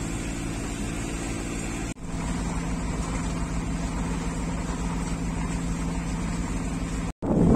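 Dufour 31 sailboat's inboard engine running steadily while motoring in a calm, a low even hum. It breaks off briefly about two seconds in, and just before the end it cuts off and wind buffeting the microphone takes over.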